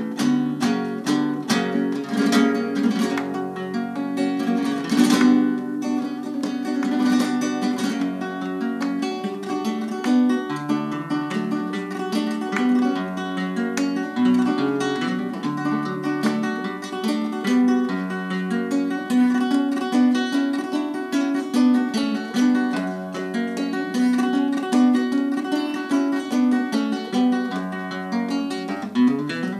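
Flamenco guitar music played on a nylon-string guitar, chords and picked notes, with rhythmic hand clapping (palmas) accompanying it.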